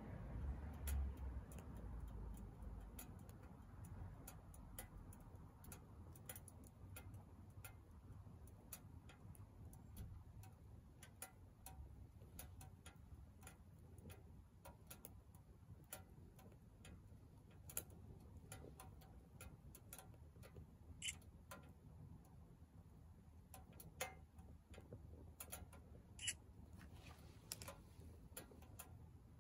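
Wood burning in a Soomloom MECA mini wood stove, crackling faintly with irregular small snaps and ticks, with a few sharper pops in the second half.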